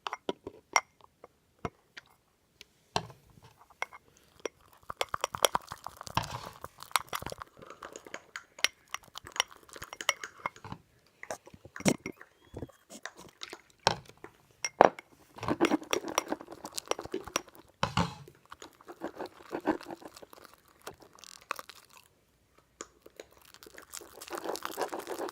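Slime being stirred in a bowl: a utensil clicking and scraping irregularly against the bowl as the glue mixture, activated with contact lens solution, thickens.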